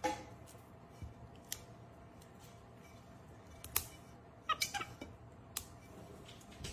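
Fresh green beans snapped by a capuchin monkey's hands over a stainless steel bowl: several sharp snaps at irregular intervals, the loudest near the middle. A quick cluster of short high squeaks comes about four and a half seconds in.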